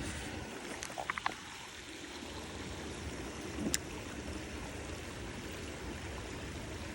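Creek water flowing with a steady rush, broken by a few short clicks and brief high pips about a second in and one sharp click near the middle.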